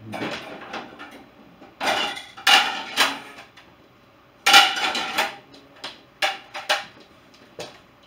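The bottom rack of a dishwasher rattling as it is pulled out, then clean plates clattering and clinking as they are lifted out of the rack and stacked, in several loud bursts, with a few short sharp clinks near the end.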